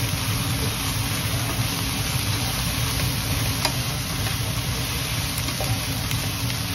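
Chicken pieces and onions sizzling in hot oil in a frying pan as they are stirred, with a couple of light clicks of the utensil against the pan, over a steady low hum.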